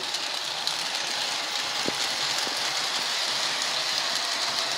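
O gauge three-rail model trains running on their track: a steady rumble of wheels and motors, with a few faint clicks.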